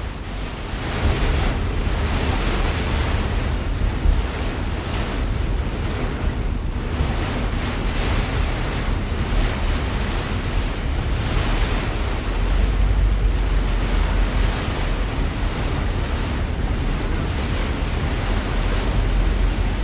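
Heavy rain pouring in a steady hiss, with wind buffeting the microphone in low rumbles that swell about two-thirds of the way through and again near the end.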